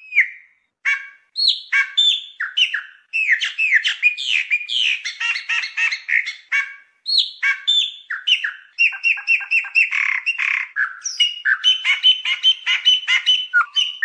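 Chopi blackbird singing: a long, rich run of quick whistled and chattering notes, many sliding sharply downward, with a few short breaks.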